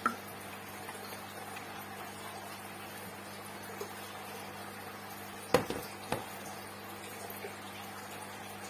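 Small water sounds from a mesh hand net being dipped and moved in a shallow plastic tub of water, over a steady low hum. There is a sharp tap right at the start and two more about five and a half and six seconds in.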